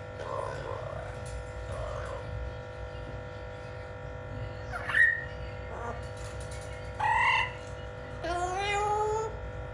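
Blue-fronted Amazon parrot calling: a short sharp call about five seconds in, a louder call about seven seconds in, and a drawn-out rising call near the end.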